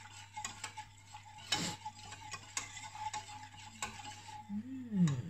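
Spoon stirring pudding mixture in a stainless-steel saucepan, scraping and clinking against the pan in small irregular taps, with a louder scrape about one and a half seconds in. Near the end a short hummed voice sound.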